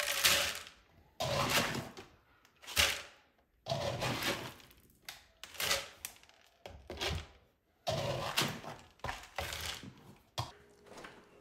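Dry puppy kibble being scooped from a plastic storage bin and poured into a blender jar: about nine short bursts of kibble clattering, each under a second.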